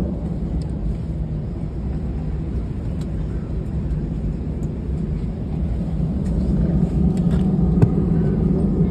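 Steady low rumble of an airliner cabin as the jet taxis on the ground after landing, with a few faint clicks.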